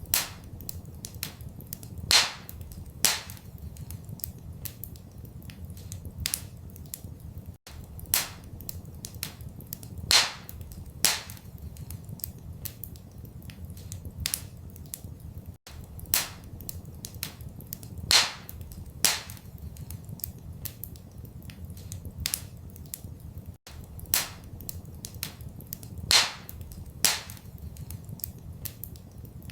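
Wood fire crackling and popping in a fireplace, with a steady low rumble underneath. The pattern of crackles repeats about every eight seconds, with the loudest pop in each round.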